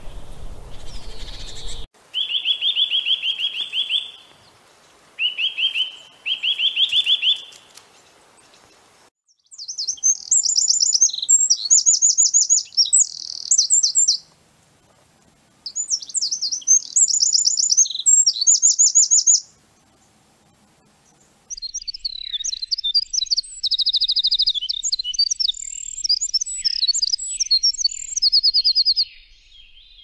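A Eurasian nuthatch gives three short, fast trills of repeated notes. Then a Eurasian wren sings three loud, high, rapid songs of trills and warbles, with short pauses between them.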